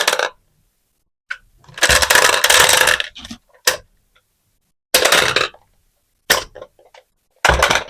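Marbles rattling and clacking along a toy marble run in separate bursts: a long rolling rattle about two seconds in, then several short sharp clacks with silence between them.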